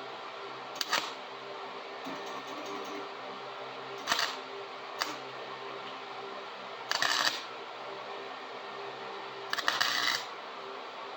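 Short bursts of a flux-core wire welder's arc: five brief tack welds, each crackling for under a second, over a steady low hum.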